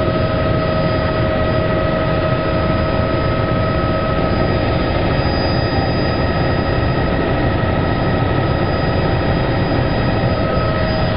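Helicopter running steadily: a constant high whine over a loud, even rumble.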